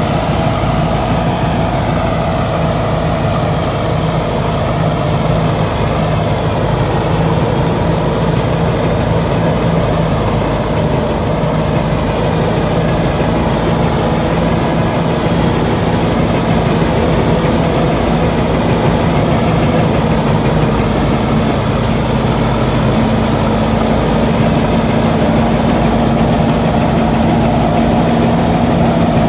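Rice combine harvester running steadily while harvesting: a continuous engine and machinery drone with a thin, steady high-pitched whine over it.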